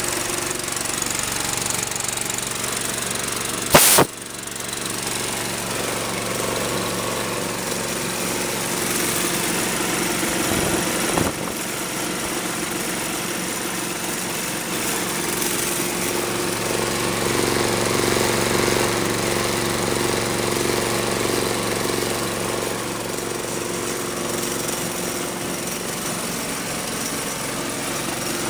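Belaire 3G3HHL air compressor with its 13 HP Honda single-cylinder engine running steadily and driving the compressor pump. There is a sharp knock about four seconds in and a lighter one about eleven seconds in.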